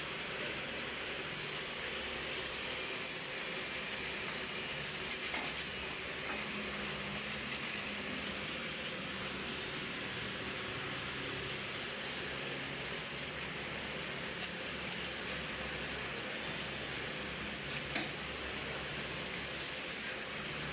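A steady hiss with a faint low hum under it, broken by a few light clicks.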